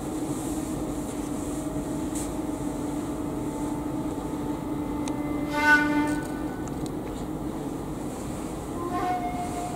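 Slow music of long held wind-instrument notes. One note is sustained for several seconds, then the pitch changes with a short louder swell a little after the middle, and a higher note is held near the end.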